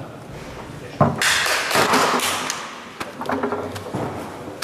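Foosball table in play on a Leonhart table: a sharp knock of the ball or a rod about a second in, then a quick flurry of clacks and rattles as the plastic figures strike the ball and the rods bang against the table, with scattered knocks after.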